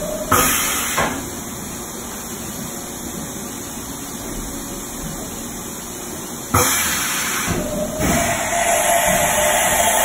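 Haas VF7/50 vertical machining center running under power, with a loud hissing that comes in sudden spells. One spell ends about a second in, there is a quieter stretch of steady machine noise, and the hissing starts again abruptly about two-thirds of the way through.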